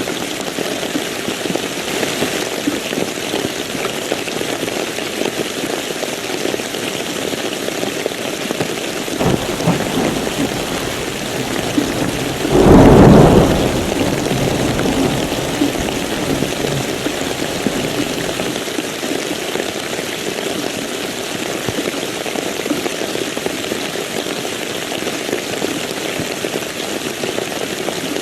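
Steady heavy rain with one thunderclap: a low rumble builds about a third of the way in, breaks into a loud crack a little before halfway, then rolls away over a few seconds.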